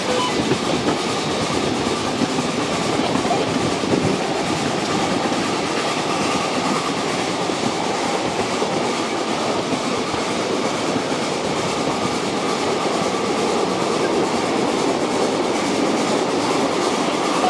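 Ride-on live steam miniature train running along its track: a steady rumble of the cars' wheels on the rails with rapid clicking.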